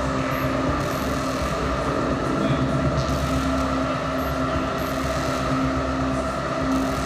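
Live experimental electronic music from a laptop orchestra: a dense, steady, noisy drone with a deep low end, much like engine noise. A held low tone runs through it and fades out for a moment near the middle.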